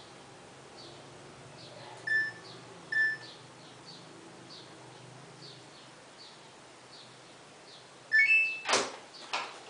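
Washing machine control panel beeping: two short single beeps a second apart, then a quick rising three-note chime near the end, followed at once by two loud sharp clicks.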